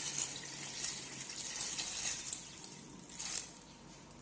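Water pouring in a stream into a metal cooking pot over raw mutton pieces, splashing and hissing, then tapering off about three seconds in as the pouring stops.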